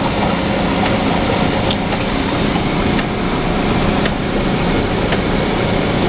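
Closed-loop cooling tower running: fans and spray water making a loud, steady rushing noise with a low hum underneath, and a few light clicks.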